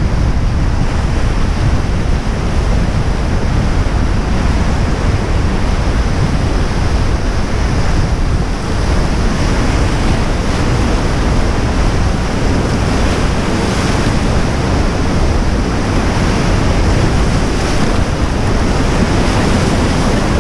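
White-water rapids rushing loudly around an inflatable raft, a steady roar of churning water with heavy wind buffeting on the microphone.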